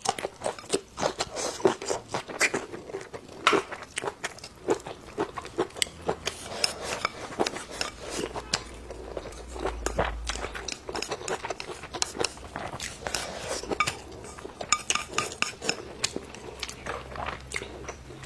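Eating at the table: utensils clinking and scraping against dishes, mixed with chewing and crunching, in many sharp irregular clicks.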